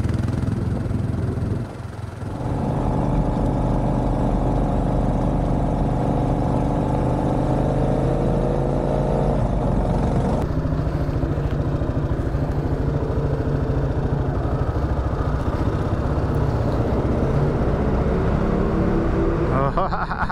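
Kawasaki KLR650 S single-cylinder engine running while the motorcycle is ridden. About two seconds in the engine note drops briefly, like a gear change. It then climbs steadily in pitch as the bike accelerates.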